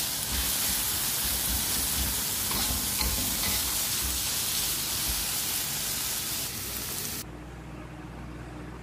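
Green beans and egg sizzling in a hot wok while a metal spatula stirs and scrapes them against the pan. The sizzle cuts off suddenly about seven seconds in, leaving only a quieter low hum.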